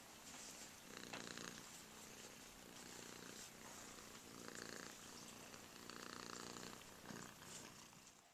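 Domestic cat purring faintly while being stroked, the purr swelling and easing with each breath about a second or so apart.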